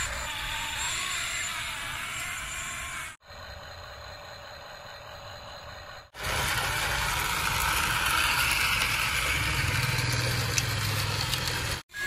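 Toy RC excavator working in sand: its small motors and gears run with plastic rattling and scraping. The sound is broken by abrupt cuts about three seconds in, about six seconds in and near the end, and is loudest after the second cut.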